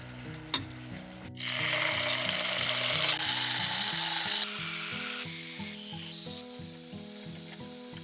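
Food dropped into hot oil in a pan, sizzling loudly. The sizzle starts suddenly about a second and a half in, swells, then dies down to a lower steady frying hiss, over steady background music.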